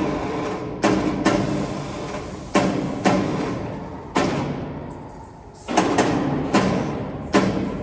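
Metal being struck on the steel of a conical twin-screw extruder: about nine sharp clangs at irregular intervals, each ringing and dying away over about a second.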